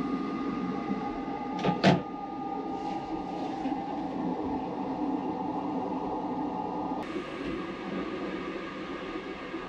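Two sharp plastic clacks in quick succession, about two seconds in, as a fold-down Combi baby seat on a train toilet wall is handled. Under them runs the steady hum of the moving train, heard from inside the small toilet room.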